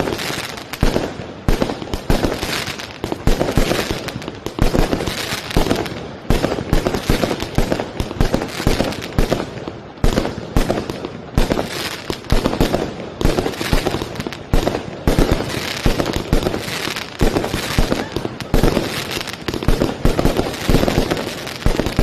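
Fireworks barrage: shells launched from street level and bursting overhead, with many sharp bangs and thumps a second and no break.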